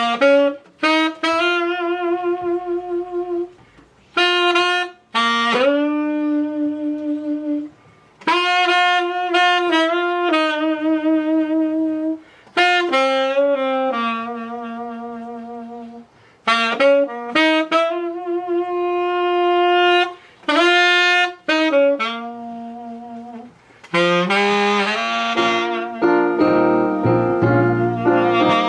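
A solo wind instrument, in the saxophone kind, plays a slow, bluesy melody in phrases with vibrato on the held notes. Piano chords join near the end.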